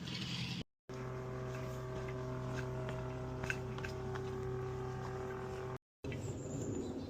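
A steady engine or motor hum at one unchanging pitch. It starts abruptly just under a second in and cuts off suddenly near six seconds.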